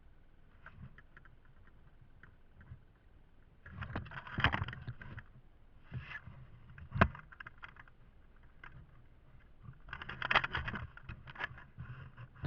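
Two bursts of rustling and scraping handling noise, with a single sharp click about seven seconds in.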